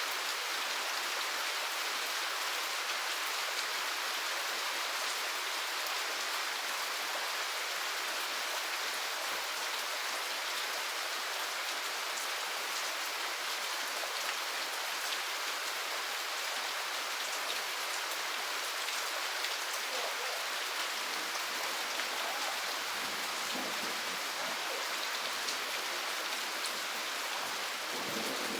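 Steady rain falling on surfaces, an even hiss of many drops.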